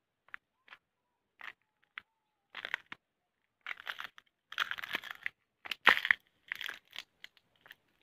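Footsteps crunching on crusted snow: irregular crunches, a few light ones at first, then heavier and louder from about two and a half seconds in.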